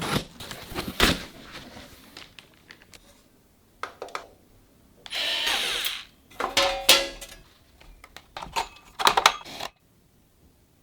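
PC parts being handled and fitted together: a series of sharp clicks and knocks, with a steady whir lasting about a second around five seconds in. The sounds stop near the end.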